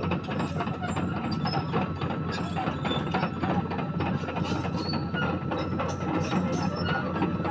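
CAT 320D tracked excavator running steadily under work, with a low engine hum and a faint whine, and a dense run of irregular clanks and clicks from the machine working.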